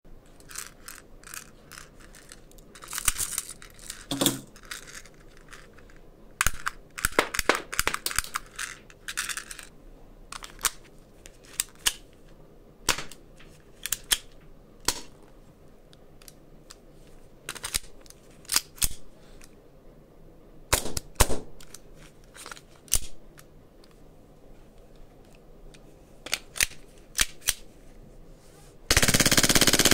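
Airsoft pistols firing BBs at a target box: a long series of sharp pops and clicks, mostly single shots with some quick strings, the cheap spring toy pistols cocked by racking the slide. Near the end comes a loud, dense burst lasting about a second.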